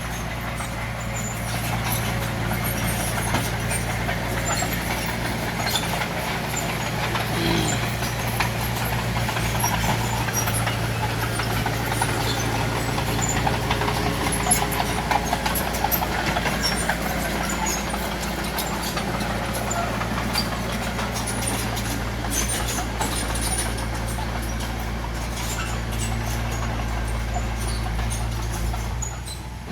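Heavy diesel engine of earthmoving machinery, likely a bulldozer, running steadily at a working pace, with scattered light clicks and clanks over it.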